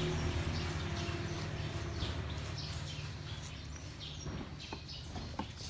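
Hands rubbing shampoo lather into a wet dog's coat, giving short wet rustles. Under it runs a steady low hum that fades out about four seconds in.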